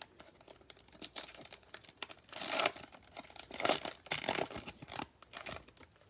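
Plastic trading-card pack wrapper being torn open and crinkled by hand, in several irregular crackling bursts.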